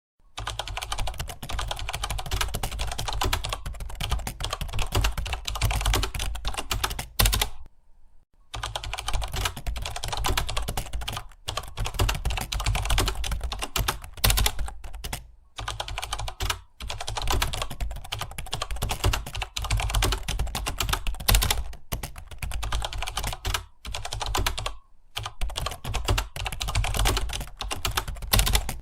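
Fast, continuous typing on a computer keyboard, a rapid stream of key clicks over a steady low hum, broken by a few brief pauses.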